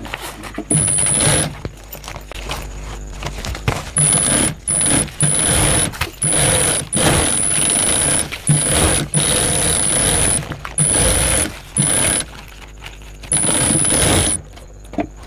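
Primex high-speed industrial lockstitch sewing machine stitching a nylon bag panel in a string of short runs, starting and stopping about every second, with a high-pitched whine while it runs.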